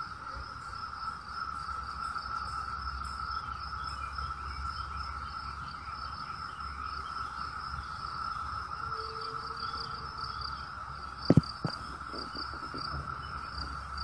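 Chorus of 17-year periodical cicadas: a steady, unbroken drone, with a brief thump about eleven seconds in.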